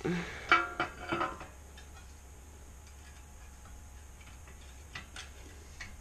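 Metal clinks and clanks as a small engine's perforated muffler is handled and set against the engine, loudest in the first second and a half, then a few faint clicks near the end.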